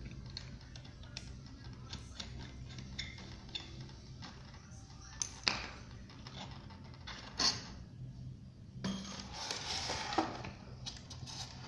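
Scattered light clicks and knocks of small hard objects being handled, with two sharper knocks about five and a half and seven and a half seconds in and a short rustle near the end, over a steady low hum.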